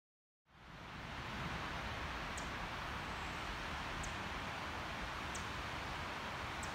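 Steady hiss of outdoor forest ambience, fading in about half a second in, with a few faint, short high chirps about a second or so apart.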